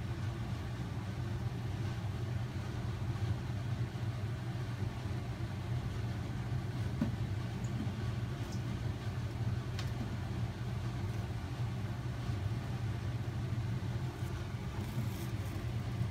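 A steady low machine hum runs throughout, with a few faint clicks and a cluster of faint ticks near the end.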